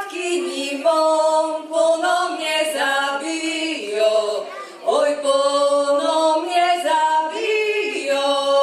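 A Nokia 7310 mobile phone ringing for an incoming call with a custom ringtone: a melody of held, stepped notes, thin and without bass. It plays in two phrases, the second starting about five seconds in.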